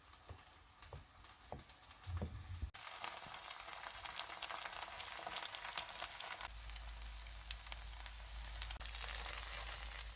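Chive pancake batter sizzling and crackling in hot oil in a frying pan. It starts abruptly about three seconds in, after a few faint low knocks.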